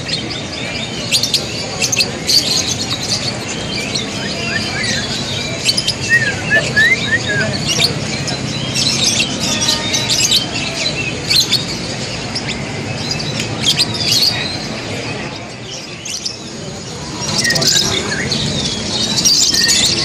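Many caged songbirds chirping and whistling together: sharp calls and short whistled phrases that overlap throughout, over a steady murmur of crowd voices.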